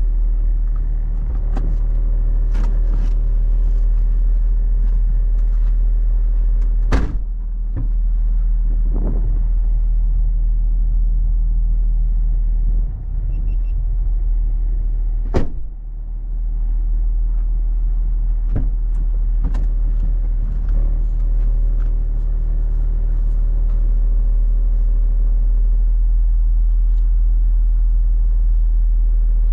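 A car's engine running steadily, heard from inside the cabin as a constant low rumble, with a few sharp knocks or clicks along the way.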